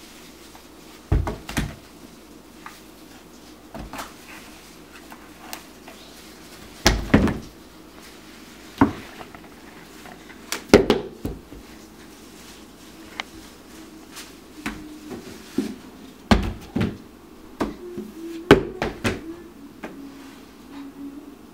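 Irregular knocks and thuds of cardboard board books being pulled off and pushed back onto a wooden bookshelf by a toddler's hands, about a dozen separate bumps with no steady rhythm.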